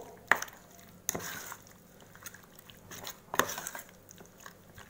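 A spoon stirring chicken pieces through a wet marinade in a stainless steel bowl, with three sharp clinks of the spoon against the bowl: about a third of a second in, about a second in, and a little past three seconds.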